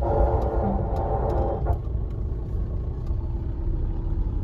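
Low, steady engine and road rumble of a Hyundai i20 heard from inside the cabin as it moves slowly. For the first second and a half a pitched tone sounds over it, then fades.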